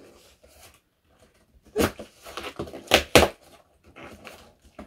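Cardboard shipping box being opened: packing tape cut and the cardboard flaps pulled open, with short, loud crackling rasps of cardboard about two seconds and three seconds in.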